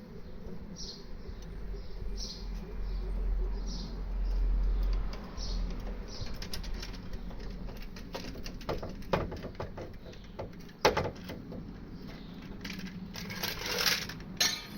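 Car being let down off a jack: a short high squeak repeating about once a second, a low rumble for a few seconds, then a run of metallic clicks, clanks and knocks that grow louder near the end.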